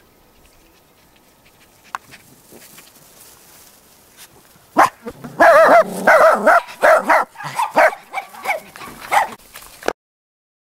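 Cairn terrier puppies barking while they play-fight: a rapid run of short, high-pitched barks starting about five seconds in, cutting off suddenly near the end.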